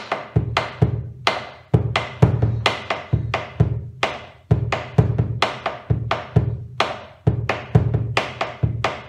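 Bombo legüero, the Argentine folk bass drum, played with two wooden sticks in the gato-type zapateo norteño rhythm in three-four time, the 'básico combinado' pattern. Deep booming strokes on the hide head alternate with sharp wooden clicks, about three to four strikes a second in a steady repeating pattern.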